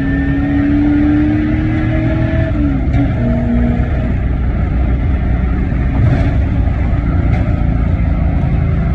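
Car engine running steadily. A pitched note in its sound climbs slightly, then drops away about two and a half seconds in, after which the engine runs on evenly.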